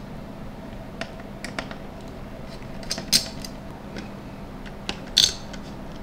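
Small screwdriver tightening the screws of a stock AMD CPU cooler down onto the motherboard: scattered light metallic clicks and ticks, the loudest about three seconds in and about five seconds in.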